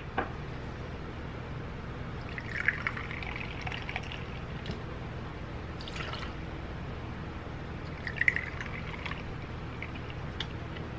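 Tequila poured from a bottle into a measuring shot glass and tipped into a cocktail shaker: two pours, about two seconds in and again about eight seconds in, with a clink between them.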